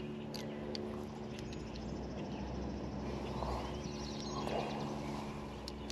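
A motor's steady hum, with faint bird chirps and a couple of soft rustles about three and a half and four and a half seconds in.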